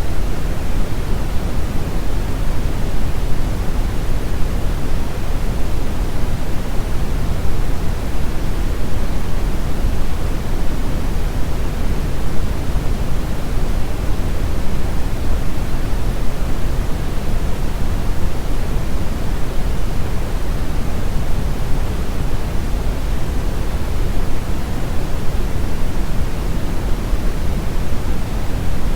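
Steady generated pink noise: an even, unchanging rushing hiss, heavier in the low end than the high.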